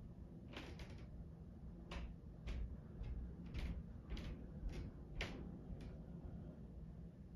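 Stomping and pounding from the upstairs neighbours' apartment, heard through the ceiling: about ten irregular knocks and thumps, some with a deep thud, stopping about six seconds in.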